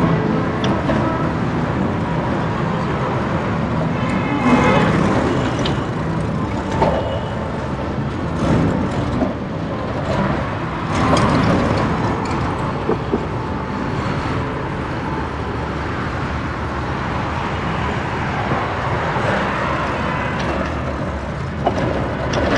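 City street traffic: cars and buses passing with a steady mix of engine and tyre noise, and a few short sharper sounds along the way.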